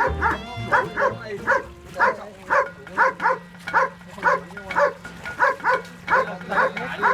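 A dog barking rapidly and insistently, about three barks a second, often in quick pairs, over a steady low hum.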